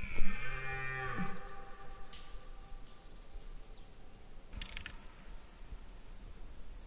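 Red deer stag giving one short bellow of about a second, falling in pitch. A brief clatter follows about four and a half seconds in.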